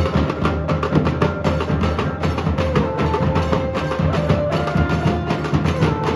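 Nashik dhol troupe playing: large barrel dhols beaten with sticks and smaller tasha drums in a fast, dense rhythm, with held melody notes stepping in pitch above the drumming.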